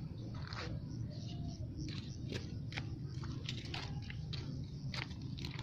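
Scattered light clicks and ticks at irregular intervals over a steady low background rumble.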